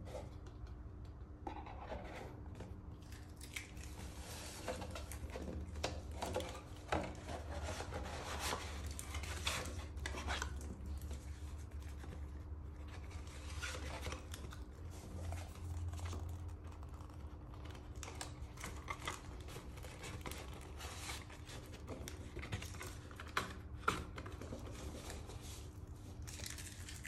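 Cardboard watch boxes being handled and packed away: paper-covered card boxes sliding and scraping against each other, with repeated rustling and a couple of sharper taps as box and lid come together.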